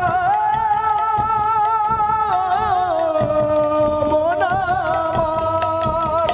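Live Baul folk music: a male voice holds long, wavering sung notes that dip in pitch about halfway through and rise again, over khol drum strokes.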